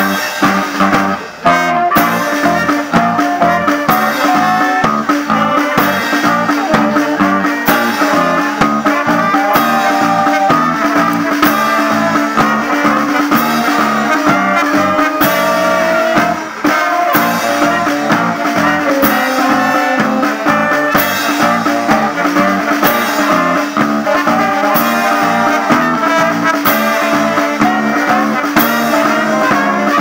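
Brass band playing an upbeat tune: saxophones, trumpets and trombone over snare drum, bass drum and electric guitar, with a steady beat. It drops out briefly about a second in and again midway.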